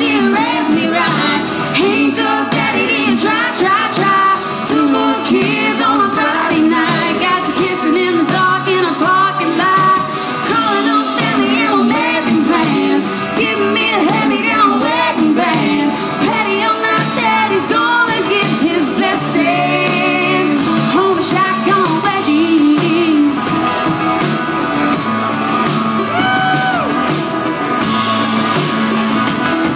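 A woman singing lead into a microphone over a live band with electric guitar and drums, played loud and steady in a large room.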